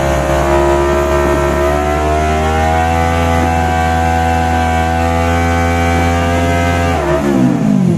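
250 cc sport motorcycle engine held at steady high revs on the drag strip start line, the pitch rising a little early on and then dropping sharply about seven seconds in.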